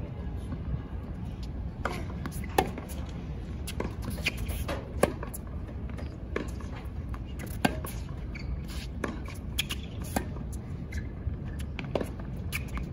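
Tennis rally: racquets striking the ball back and forth, with the ball bouncing on the hard court, as sharp pops about every second or so. The loudest hits come roughly every two and a half seconds.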